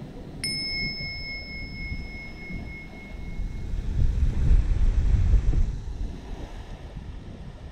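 A single bell chime, struck once about half a second in and ringing out for about three seconds. Under it, surf and wind rumble on the microphone, swelling for a couple of seconds in the middle.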